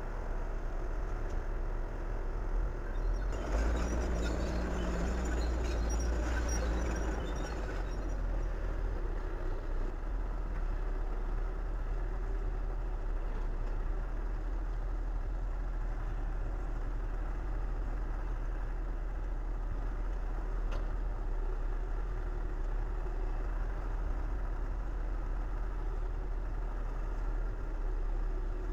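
Heavy diesel engine idling, a steady low rumble, with a louder stretch of machinery noise from about three to eight seconds in.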